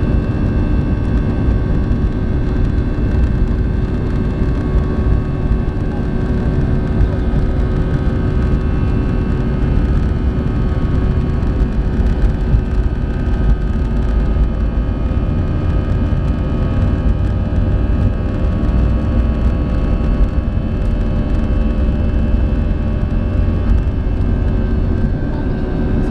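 Airbus A320 jet engines running at low taxi power, heard inside the cabin over the wing: a steady low rumble with several steady whining tones above it, unchanging in level as the airliner taxis.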